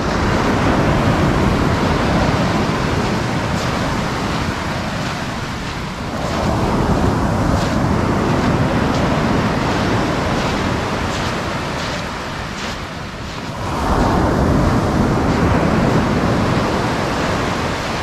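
Sea surf breaking and washing up a sandy beach in three rushing swells, near the start, about six seconds in and about fourteen seconds in.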